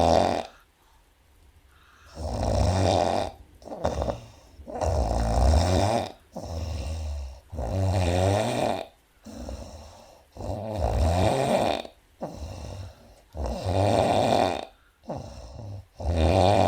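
A woman snoring in her sleep. Long, loud snores come about every three seconds, each followed by a shorter, softer one.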